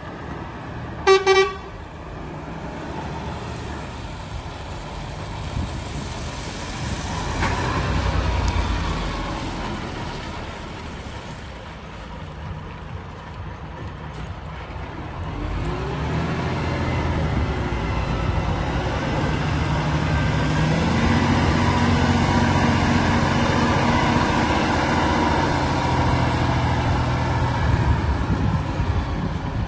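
2017 Volvo FH 460 tractor unit's 13-litre straight-six diesel running as the truck drives up, the engine sound growing louder and fuller in the second half. A short, loud horn toot comes about a second in.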